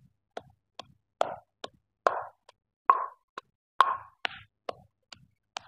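Wooden pestle pounding green chillies and coriander in a stone mortar, crushing them to a paste. Steady knocks, about two or three a second, some with a duller, wetter thud as the pestle lands in the greens.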